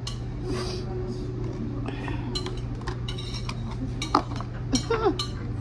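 Dishes and cutlery clinking and knocking on a table, a scatter of short knocks with the sharpest about four seconds in.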